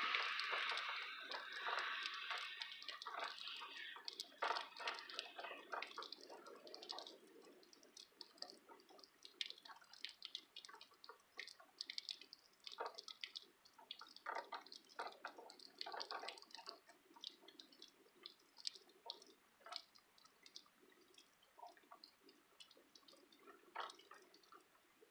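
Tyres hissing on the wet road as a car goes away, fading out over the first several seconds. After that, irregular drips and light taps of rainwater.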